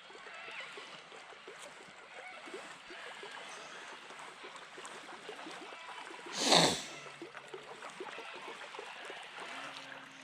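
Water lapping and trickling against a drifting boat, a steady patter of small ticks, broken about six and a half seconds in by one brief loud burst of noise. A faint steady hum comes in near the end.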